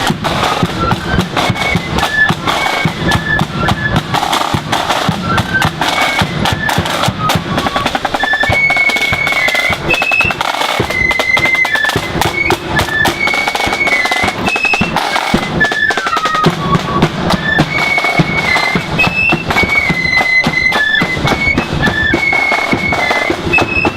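Marching flute band playing a tune: flutes carry a high melody over rapid side-drum rolls and a steady bass drum.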